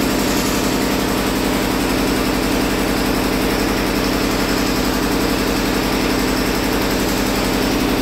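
Air-cooled generator engine running steadily, with an even firing beat.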